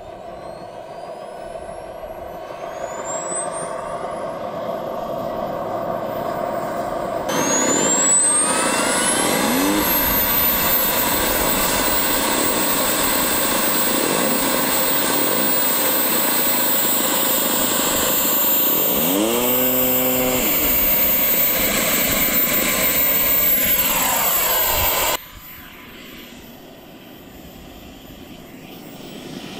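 Xicoy X-45 model jet turbine in an RC jet spooling up: a high whistle rising steadily in pitch as the engine gets louder. It then runs loud and steady at high power with a high whine, and drops suddenly to a much quieter level near the end.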